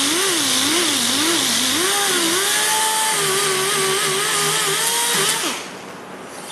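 Power sander grinding down a plastic bumper repair, its pitch wavering up and down as the load changes. It stops about five and a half seconds in.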